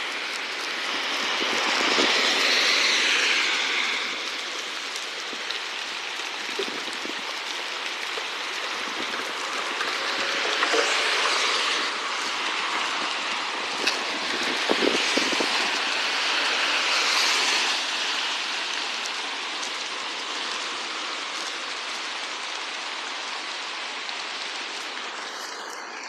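Steady hiss of rain and wet road noise, swelling several times as heavy vehicles pass on the highway.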